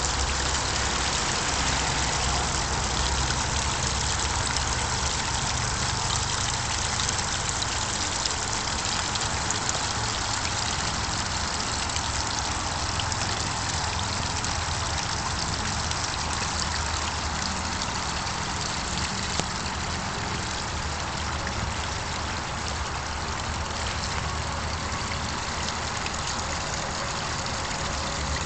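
Small garden-pond waterfall splashing steadily over rocks, with a steady low rumble underneath.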